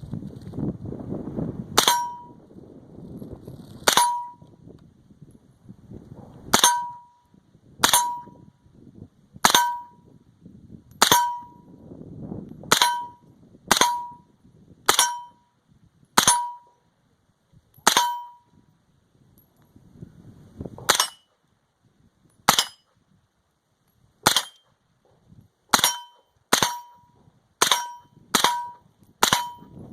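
Suppressed 9mm MP5 fired in single shots, about twenty in all. Each shot is a sharp crack followed by a brief metallic ring. The shots come every second or two and quicken to under a second apart near the end. The suppressor keeps the reports quiet.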